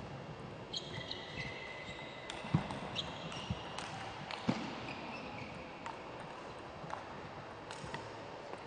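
Table tennis rally: the ball clicking sharply off rackets and table at irregular intervals, with high shoe squeaks on the court floor during the first couple of seconds.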